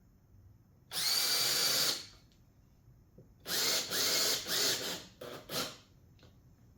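Power drill running in one burst of about a second, then in four or five shorter trigger pulses, as it fastens a wooden cleat to the clamp-rack piece.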